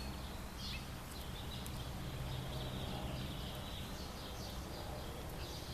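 Outdoor ambience: small birds chirping faintly in short repeated calls over a low steady hum.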